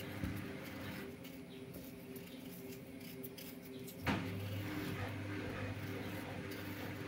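Kitchen knife scraping and peeling the loose skins off boiled potatoes: soft, small scratchy sounds, with a sharp click about four seconds in.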